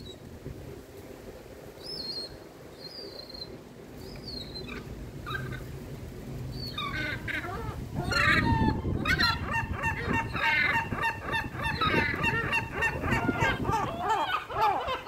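Gulls calling: a few faint short calls at first, then from about seven seconds in, loud repeated calls that build into a dense, overlapping chorus.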